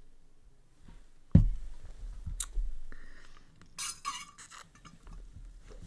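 A single sharp thump about a second and a half in, then faint clicks and rustling from someone moving at a desk.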